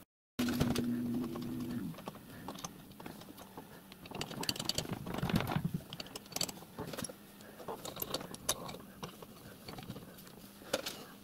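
Light metallic clicks, clinks and knocks of steel brake parts being handled and fitted on a small riding-car frame. A steady low hum sounds for a second or so near the start.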